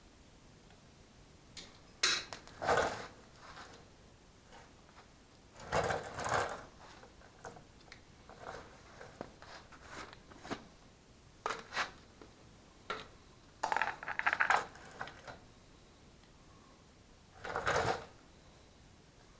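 Metal engine parts and hand tools clinking and rattling as they are handled and set down, in a few irregular bursts of sharp clicks and short clatters with quiet gaps between.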